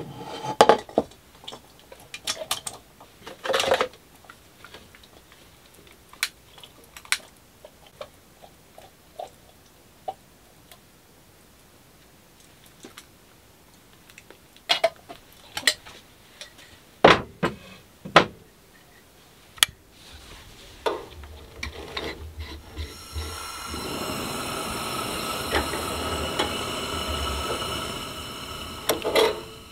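Pots, spoons and tin cans clinking and knocking in a boat's galley, a sharp knock or two at a time with pauses between. About three-quarters of the way through, a steady hiss starts from the gas stove burner, which is lit with a utility lighter near the end.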